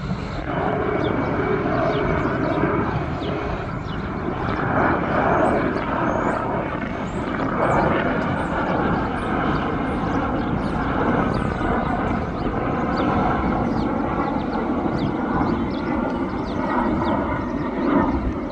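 Jet airliner engine noise, a steady rumble with slow swells in loudness.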